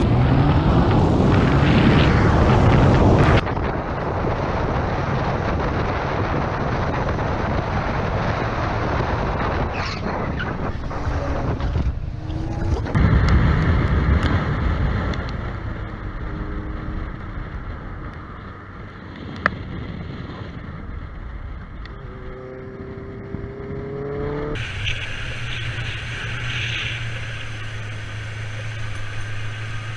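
Motorcycles running with wind rushing over an onboard microphone, in several riding clips that cut abruptly from one to the next. A little past the middle the engine note rises as the revs climb, and there is one sharp tick.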